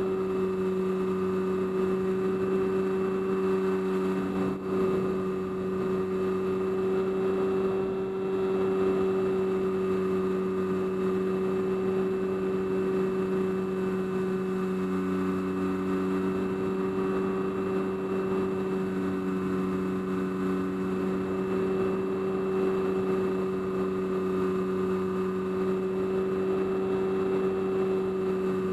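Electric motor and propeller of an FPV model aircraft running at steady cruise power, heard through the onboard camera: a constant droning hum with a higher whine above it, the tone shifting slightly about halfway.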